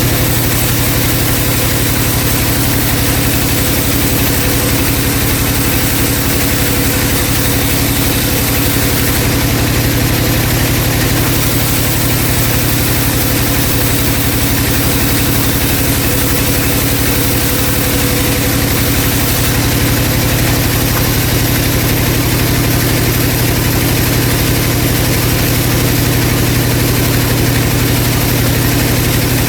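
Vertical band saw running with a steady low hum while sawing a round log into planks.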